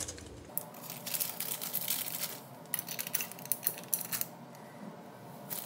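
Brass closet bolts clicking and clinking against a metal toilet flange as they are slid into its slots, in two runs of small, quick metallic taps.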